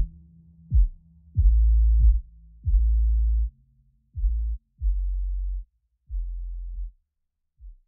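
Electronic hip-hop style music with only deep bass notes, each one starting with a short sharp drop in pitch, in an uneven rhythm; the bass stops shortly before the end.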